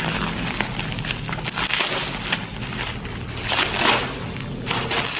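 Plastic packaging crinkling and rustling in irregular bursts as hands pull apart a plastic courier bag and the bubble wrap inside it.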